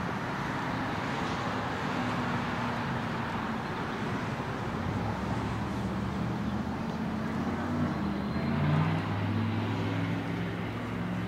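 Steady road traffic noise, with a vehicle engine's low hum growing louder in the second half.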